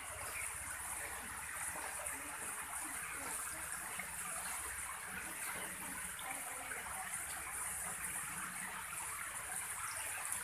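Steady splashing hiss of many fine water jets from perforated pipe sprinklers falling onto the water of concrete hatchery tanks. The showering runs all day to keep the fry alive.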